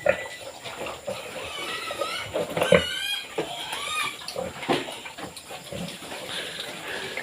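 Domestic pigs grunting and giving short squealing calls that rise and fall in pitch while they feed, most of the calling in the first half, with scattered clicks and smacks between.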